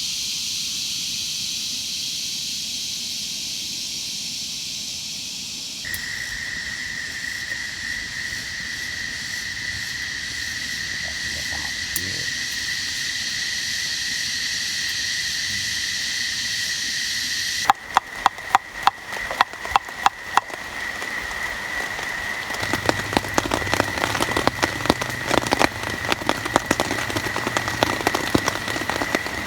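A night chorus of frogs and insects, joined about six seconds in by one steady high-pitched call. Past the middle, raindrops begin pattering in sharp ticks that grow denser toward the end.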